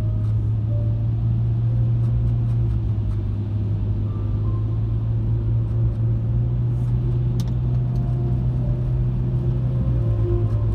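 Steady low rumble of a car's engine and tyres heard from inside the cabin while driving on a wet road, with a single sharp click about seven and a half seconds in.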